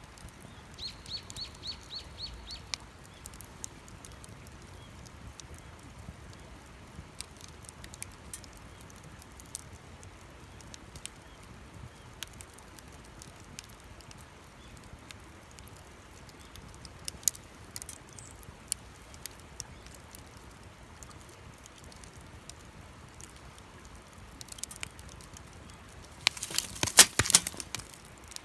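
Campfire wood crackling with scattered sharp pops. About a second in, a bird calls a quick run of high repeated notes, and near the end a loud flurry of crackles and pops lasts about two seconds.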